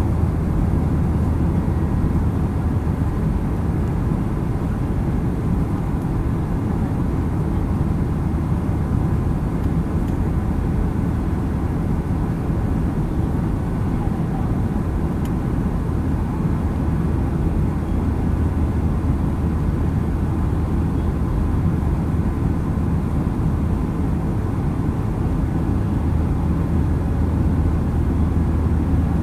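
Boeing 737 jet engines running with a steady low rumble and no change in level.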